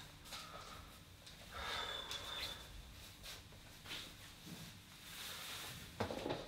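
A young man's heavy, uneven breathing, with sighs and sniffs as he fights back distress, and a single knock about six seconds in.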